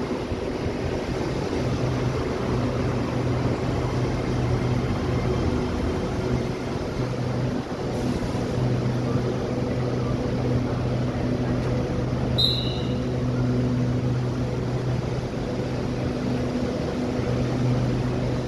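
SRT Red Line electric train standing at the platform, its onboard equipment giving a steady low humming drone. A short, high two-note beep sounds about twelve seconds in.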